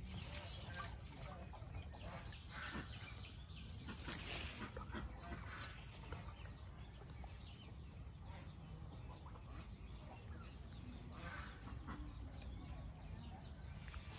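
Faint scattered bird calls over a low steady rumble.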